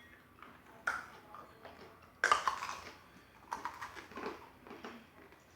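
People starting to eat hard lollipops and Oreos: scattered small clicks and crackles, with louder crackles about one and two seconds in.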